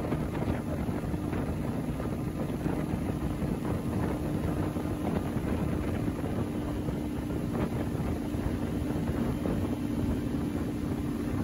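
Speedboat running fast with its engine holding one steady hum, water rushing and spraying past the hull and wind buffeting the microphone.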